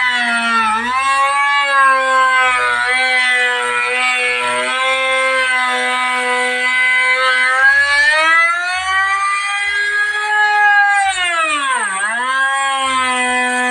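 Power wood-moulding machine cutting a window-frame profile in timber. The motor runs with a steady whine that sags in pitch about a second in, rises through the middle, then dips sharply near the end before recovering. The pitch drops are the motor loading up as the cutter bites into the wood.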